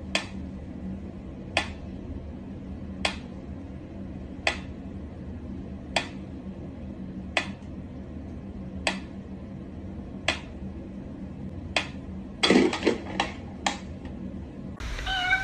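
Mechanical pendulum metronome ticking slowly and evenly, about one tick every one and a half seconds. About twelve and a half seconds in comes a quick flurry of louder knocks and clatter.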